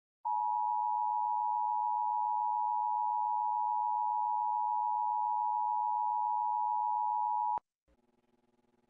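Emergency Alert System attention tone: one steady high-pitched beep held for about seven seconds, cutting off abruptly near the end.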